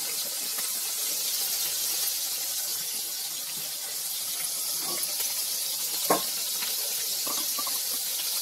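Chicken legs frying in vegetable oil in a pan, a steady high sizzle. A brief sharp click about six seconds in.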